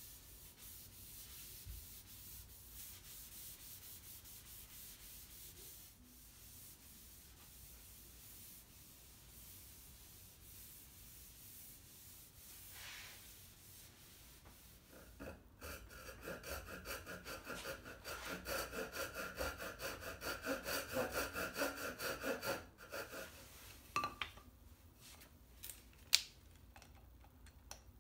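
A cloth rag is wiped back and forth over a Douglas fir desktop, rubbing finish into the wood. It is a faint rubbing at first. About halfway through it turns into louder, rapid back-and-forth strokes with a squeaky edge, and a few sharp clicks come near the end.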